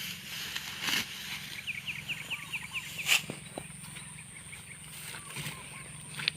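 A bird calling: a quick run of about eight short falling chirps in under two seconds. Under it runs a low steady hum, and a few sharp knocks or rustles break in, the loudest about three seconds in.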